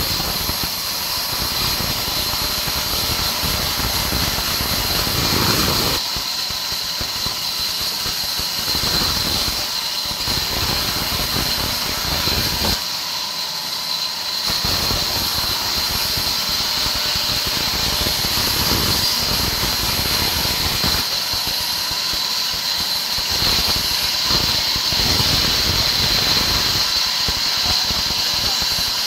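Sawmill's vertical band saw running with a steady high-pitched whine, its blade ripping through wooden planks in long cuts broken by several short pauses as each board is fed.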